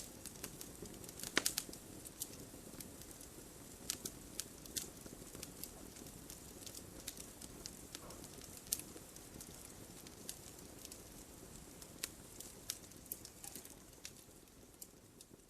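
Wood logs burning in a fireplace, crackling with irregular sharp pops over a low steady rush of flame. A quick cluster of pops about a second and a half in is the loudest.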